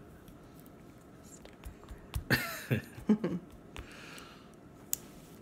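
Quiet room tone with a few short, breathy chuckles and breaths from the couple in the middle, and a single sharp click near the end.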